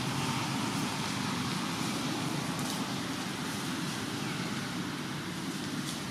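Steady outdoor background noise: a low rumble with a hiss above it and a few faint crackles.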